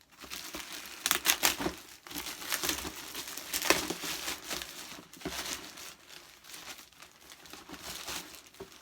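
Delivery packaging being opened and handled: irregular crinkling and rustling, loudest about a second in and again near four seconds.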